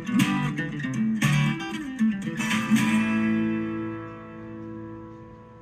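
Guitar music played through the Sony STR-DE545 receiver and its speakers: a few strummed chords, then a last chord that rings and slowly fades from about three seconds in. The receiver is playing normally and out of protect mode.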